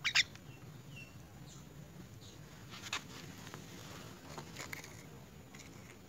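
A young common myna's bill pecking and tapping at its food on the netting: scattered sharp clicks, the loudest right at the start, with a couple of short, faint high peeps in the first second.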